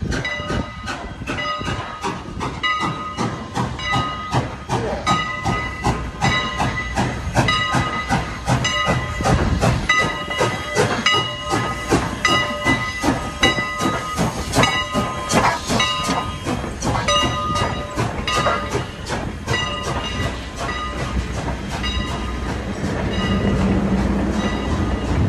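Steam locomotive's bell ringing steadily, about two to three strokes a second, as the engine approaches and pulls in. The bell stops near the end and a low rumble of the passenger cars rolling past rises.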